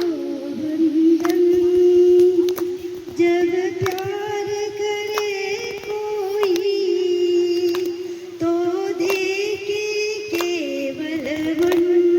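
A voice singing long, drawn-out held notes with little accompaniment, the pitch wavering slightly within each note, with scattered sharp clicks.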